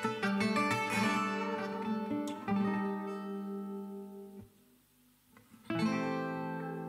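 Acoustic guitar background music: picked notes and chords that ring out, dying away to a short lull about four and a half seconds in, then a fresh strummed chord near the end.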